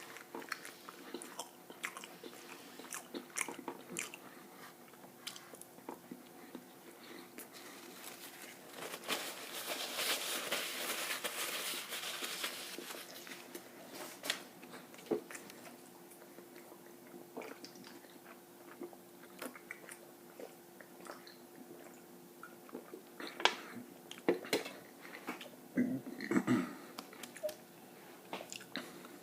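Close-miked eating: biting and chewing with scattered small clicks and crunches. About ten seconds in there is a few-second stretch of louder hiss-like noise, and near the end a cluster of louder knocks and low thuds.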